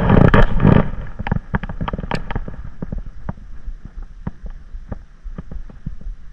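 Gear-handling noise on a fishing kayak: a loud rustling burst about a second long, then scattered sharp clicks and knocks, a few each second.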